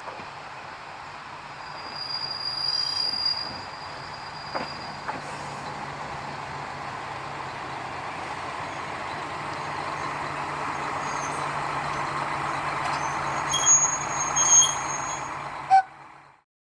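Diesel railcar of the former Furusato Ginga Line running on the rails with a steady engine hum and running noise that grows louder. Its wheels squeal shrilly about two seconds in and twice more near the end, then the sound cuts off abruptly.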